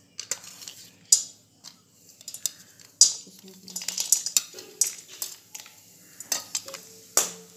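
Metal clinks and knocks of utensils against a kadhai as chopped dry fruits (almonds, coconut, cashews) are tipped into hot ghee, with the sharpest knocks about a second, three seconds and seven seconds in.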